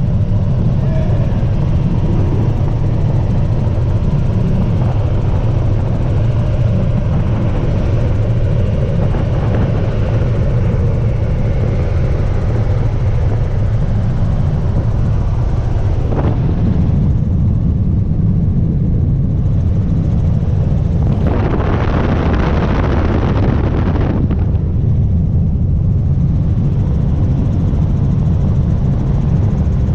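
Helicopter in flight, heard from inside the cabin: a steady, loud low drone of rotor and engine. A burst of hiss lasts about three seconds around two-thirds of the way through.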